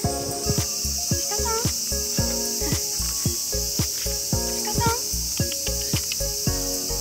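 Background music with a soft beat about twice a second, laid over a steady high-pitched chorus of cicadas.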